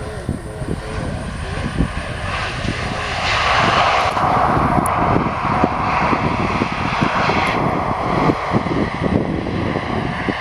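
Turbofan engines of an Airbus A320-family airliner rolling along the runway, a loud steady jet roar that swells about three seconds in. Wind buffets the microphone with low rumbles.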